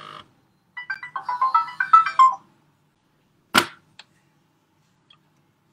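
A short electronic phone tune: a quick run of beeping notes stepping up in pitch for under two seconds. About a second later comes a single sharp click.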